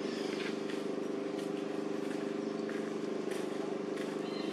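A steady motor drone, like an engine running at an even speed, with a few faint brief rustles.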